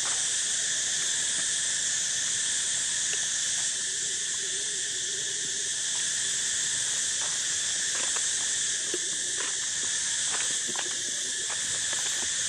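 Steady, high-pitched drone of an insect chorus in the forest, with scattered faint clicks and crackles.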